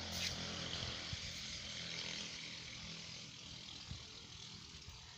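Steady hiss of rain falling, with a low hum underneath, growing fainter over the last couple of seconds.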